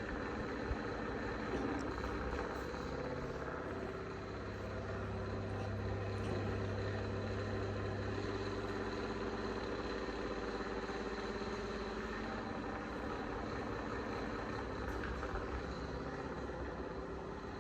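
Cat purring close to the microphone: a steady, continuous low rumble.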